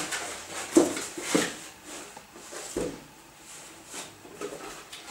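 A cardboard box and its packing being handled: rustling as a foam insert and a packing sheet are lifted out, with a few soft knocks of cardboard.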